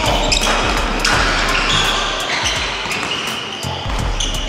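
Basketballs bouncing on a wooden gym floor during a children's game, with repeated sharp thuds echoing in the large hall.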